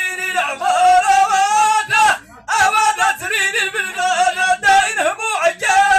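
A man's voice chanting Amazigh verse in long, ornamented held notes through a microphone and loudspeaker, with a short break about two seconds in.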